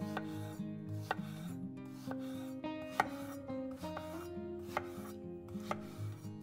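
Kitchen knife chopping vegetables, separate cuts about one or two a second, over soft background music.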